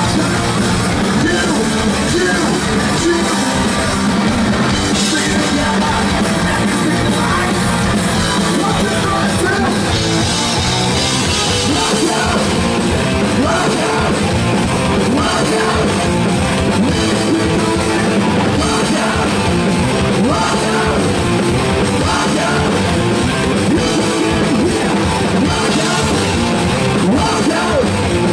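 Hard rock band playing live and loud: distorted electric guitars, bass guitar and a driving drum kit, without a break.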